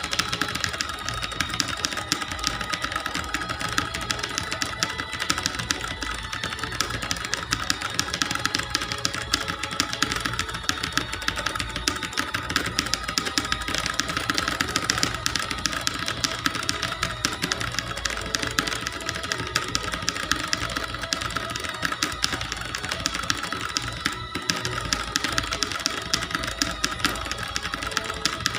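Rapid, continuous typing on a clicky computer keyboard, many keystrokes a second without a break.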